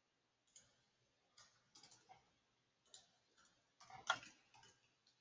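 Faint, irregular clicks of computer keyboard keys being typed, with a quick run of keystrokes and the loudest click about four seconds in.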